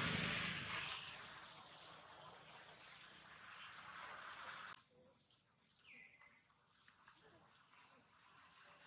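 Steady high-pitched chirring drone of insects. A broader noise lies over it, loudest at the start, and cuts off abruptly about five seconds in.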